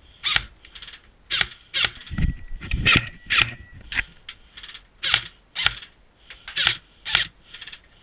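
Airsoft rifle firing single shots, about a dozen sharp mechanical clacks at uneven spacing, roughly two a second.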